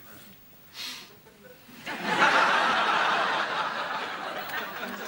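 Studio audience laughing, breaking out about two seconds in and slowly dying away.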